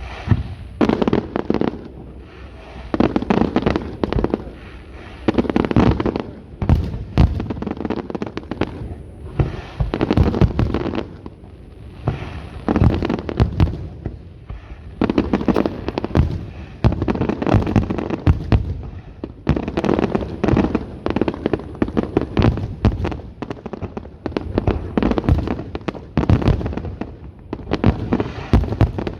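Fireworks display, with volleys of bangs and crackling bursts that come every two to three seconds, each followed by a short lull.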